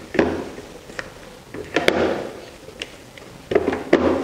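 Silicone spatula scraping around a stand-mixer bowl and stirring thick cream cheese batter by hand: three scraping strokes about a second and a half apart, with light clicks against the bowl.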